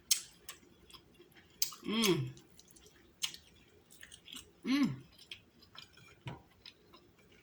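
Close-miked eating sounds: chewing of king crab meat, with sharp mouth clicks and wet smacking. Twice there is a short hummed "mm" of enjoyment.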